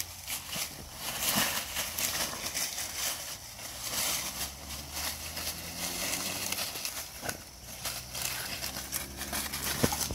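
Crunching and rustling footsteps through dry leaves and twigs, with a faint low hum twice and a sharp click near the end.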